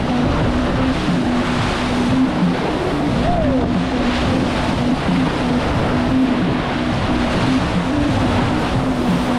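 Wind buffeting the camera microphone and water rushing past a J/70 racing sailboat's hull, with a broken low hum under the noise.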